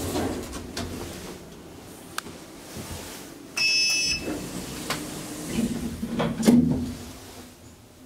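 Lift car button pressed, answered by an electronic beep of about half a second; then the lift's sliding stainless-steel doors run shut, ending in a knock a couple of seconds later.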